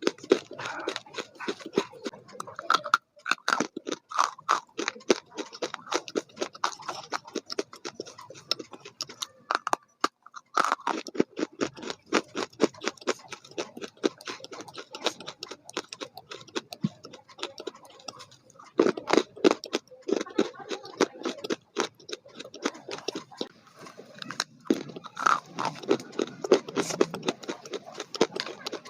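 Food being chewed with rapid, repeated crunching, broken by a few short pauses.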